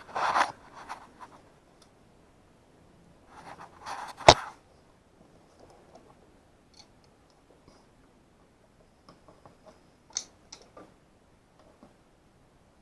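Hand cutting tool working through material: two short rasping cuts, the second ending in a sharp snap about four seconds in, followed by light clicks and handling sounds.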